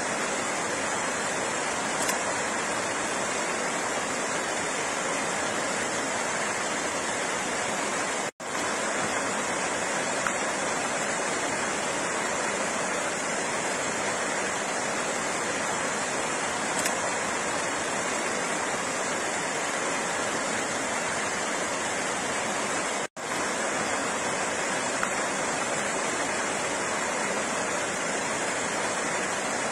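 Steady rush of flowing water, an even hiss with no rhythm or tone. It cuts out for an instant twice, about eight seconds in and again about twenty-three seconds in.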